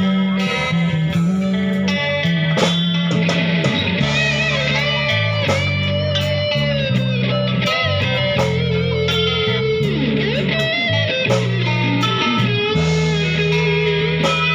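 Music led by an electric guitar playing a melody with sliding, bending notes over a steadily stepping bass line.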